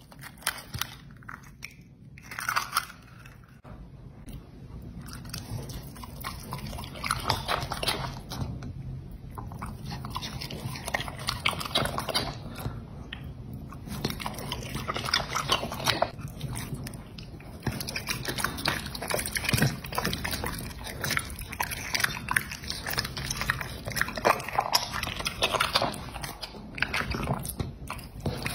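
Dog biting and chewing raw meat (chicken breast and gizzards): an irregular run of chomps, smacks and crunches, sparse for the first few seconds and then near-continuous.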